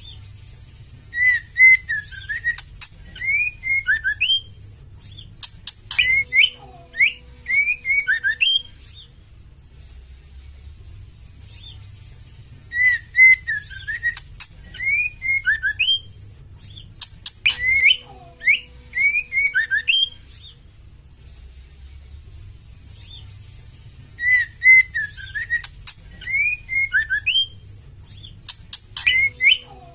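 Female white-rumped shama calling: bouts a few seconds long of sliding whistled notes mixed with very high chirps and sharp clicks, repeating with short pauses. This is a female shama's call used to stimulate male shamas to sing.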